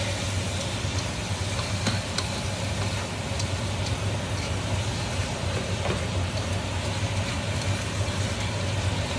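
Wild boar meat sizzling in a hot wok as it is stir-fried with wooden chopsticks, with a few faint taps of the chopsticks against the pan over a steady low hum.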